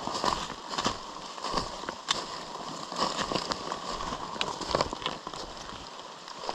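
Steady rain with irregular snaps, crackles and rustles of brush and footsteps as a hiker pushes downhill through wet forest undergrowth.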